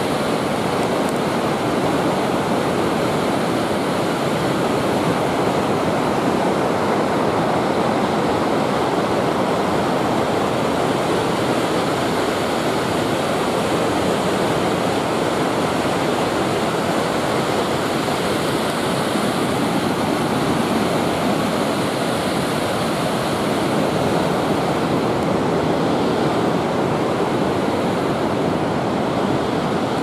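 Steady, loud rush of Eagle Falls: whitewater pouring over granite boulders, an even wash of noise.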